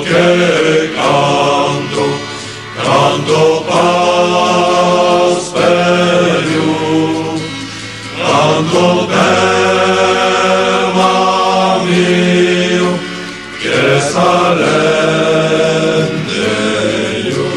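Slow sung song: voices holding long notes in phrases of a few seconds, with short breaks between them.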